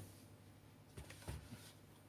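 Near silence, with a few soft knocks or taps about a second in.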